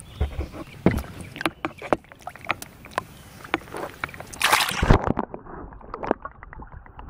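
Water sloshing and splashing beside a kayak hull, with scattered knocks and clicks, as a spotted bass is held in the water and released. There is a louder splash about four and a half seconds in, after which the sound goes muffled.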